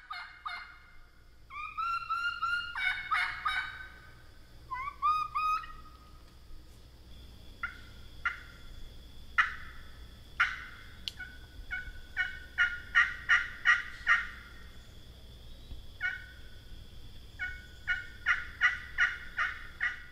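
Turkey calling in the style of a calling contest: rising yelps early on, then sharp single clucks, then fast runs of yelps near the middle and again near the end.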